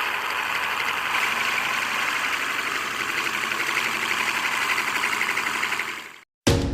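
Homemade DC-motor sanding and sharpening machine running with a steady grinding noise, which cuts off suddenly near the end.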